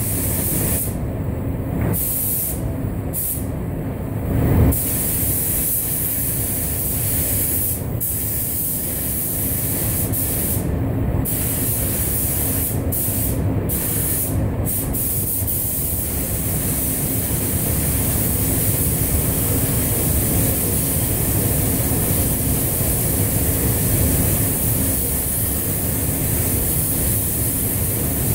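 Compressed-air paint spray gun hissing steadily, the hiss cutting out briefly about eight times in the first half as the trigger is let off, over the steady rumble of the paint booth's ventilation. A single dull thump about four and a half seconds in.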